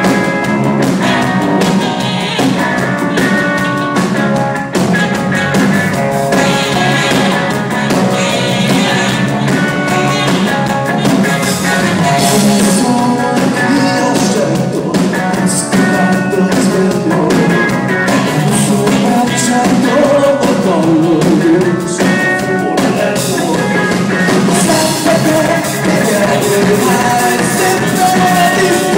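Live rock band playing, with electric guitars and drums, and singing.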